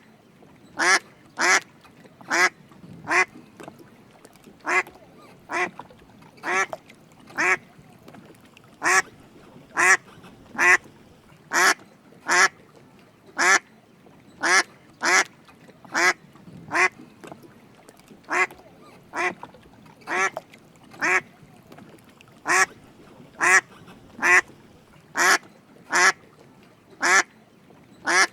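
Drake mallard quacking: short quacks repeated about once a second at an uneven pace, some coming in quick pairs.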